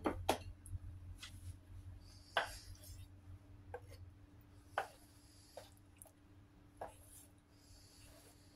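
Cleaver knocking on a wooden chopping block as it slices down through a block of tofu: a series of sharp, short knocks, the loudest right at the start and then roughly every two seconds.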